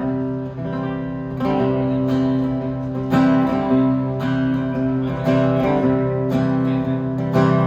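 Acoustic guitar strumming the intro of a slow country song, with chords struck about once a second and left to ring.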